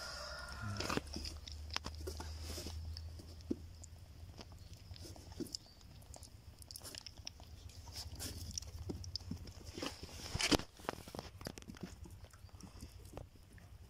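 Goat kid sucking and mouthing a person's finger: scattered small wet smacking clicks, with one sharper click about ten and a half seconds in.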